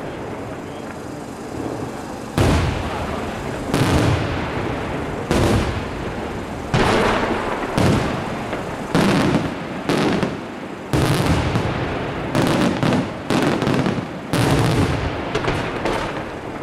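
Aerial firework shells bursting in a string of loud booms, about one a second, each ringing on in a long echo. The bangs come closer together in the last few seconds.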